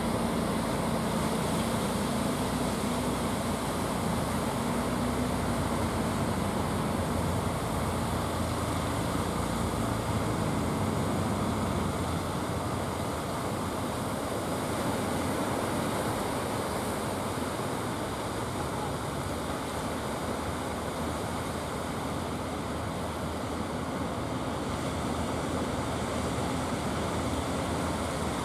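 Engines of a wooden outrigger fishing boat running steadily as it passes, their hum fading away about twelve seconds in, over the constant rush of surf and breaking waves.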